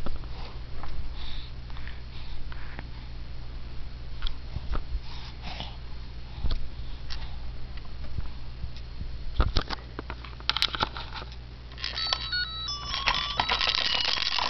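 A baby kicking under a baby play gym: scattered soft knocks and rustles, one sharper knock about nine seconds in. About twelve seconds in, the play gym's electronic toy starts a simple tune of short beeping notes.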